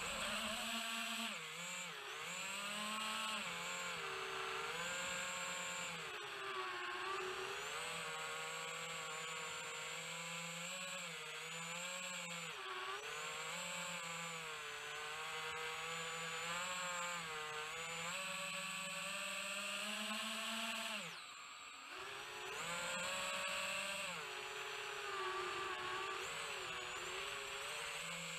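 FPV quadcopter's brushless motors whining, heard from on board, the pitch rising and falling constantly with the throttle. The whine drops away briefly about three quarters of the way through, then climbs back.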